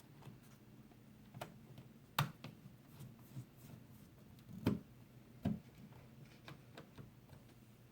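Scattered light clicks and knocks of a screwdriver and small screws on a laptop's plastic case during reassembly, the loudest about two, four and a half, and five and a half seconds in, over a faint steady low hum.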